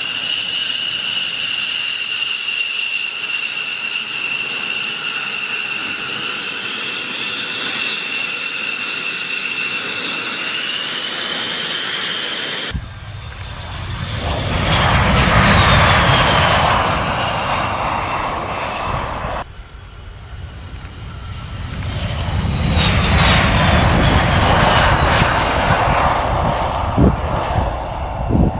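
F-15 fighter jet engines: first a steady high-pitched whine of jets running at low power, then, after a cut about 13 seconds in, two jets passing one after the other, each a swelling rush whose whine drops in pitch as it goes by.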